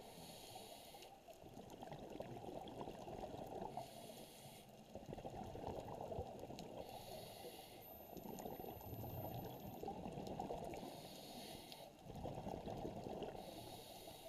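Muffled underwater noise heard through an action camera's waterproof housing, with a short hiss about every three to four seconds, five in all: the swimmer's breathing.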